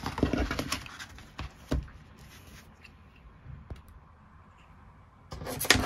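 Pencils and a card swatch sheet handled on a wooden desk: a few light clicks and taps in the first two seconds, a quiet stretch, then a louder flurry of clicks and rustling near the end.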